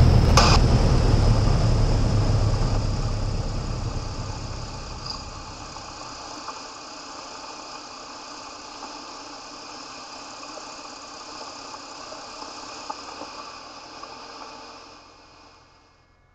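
Aircraft engine and airflow drone heard inside the cockpit during a landing approach, with a few steady whining tones. It is loudest at first, eases to a lower steady level within the first several seconds, and fades away near the end.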